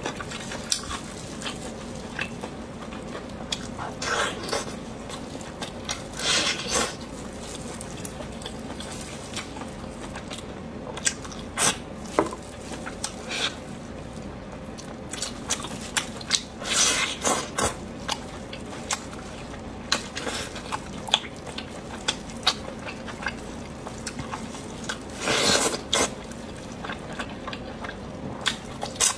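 Close-up eating sounds: chewing and wet mouth clicks scattered throughout, with a few longer noisy bites or slurps about 4, 6, 17 and 25 seconds in.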